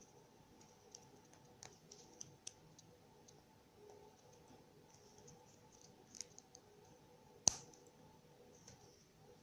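Small hard plastic pieces of a Kinder Surprise capsule and toy clicking as they are handled, as a few light scattered clicks with one louder snap late on.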